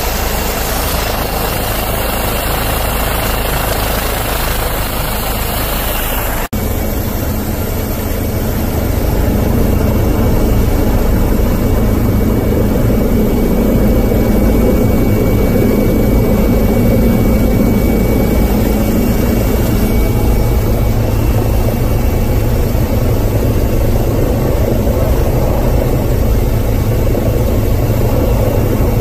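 Steady helicopter engine and rotor noise heard from on board, with an abrupt cut about six seconds in after which it runs on a little louder.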